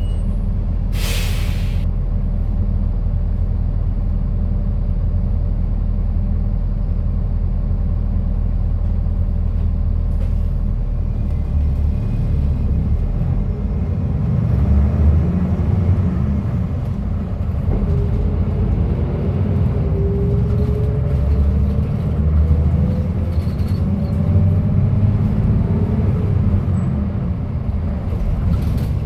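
Cummins diesel engine of a King Long KL6112U1 city bus with a manual gearbox, heard on board as the bus drives, with a short air hiss about a second in. Later the engine pulls harder under acceleration with a rising whine, revving high before a change up into fourth gear near the end.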